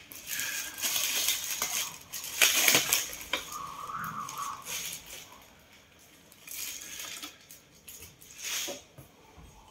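Packaging being handled during unboxing: rustling and crinkling in several short bursts, the loudest about two and a half seconds in.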